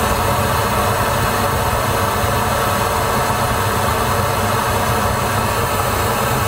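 Pink noise test signal played loud through a Volvo's 19-speaker factory sound system, with the system set to optimise sound for all seats. It is a steady, even hiss, used to measure the cabin's frequency response at the driver's position.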